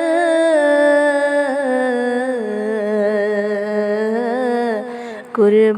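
A woman singing a Punjabi Sufi kalam, drawing out one long, slightly wavering note that sinks a little in pitch. Near the end the note breaks off briefly and the next sung phrase begins.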